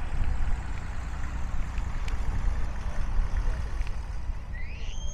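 An engine idling as a low, steady rumble. Near the end a high whistle glides upward in pitch and then holds.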